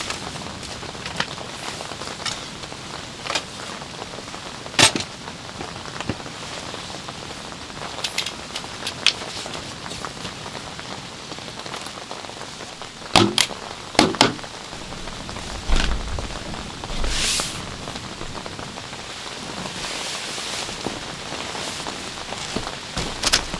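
Steady rain pattering, with scattered sharp taps and a few louder knocks.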